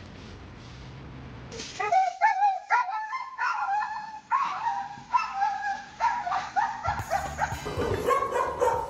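A dog giving a long run of high, pitch-bending yips and whines, starting about two seconds in over a low steady background hum.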